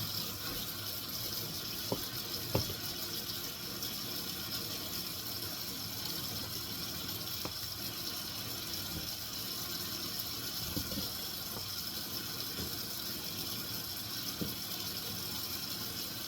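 Kitchen tap running steadily into a sink, with a few light knocks about two seconds in and again later.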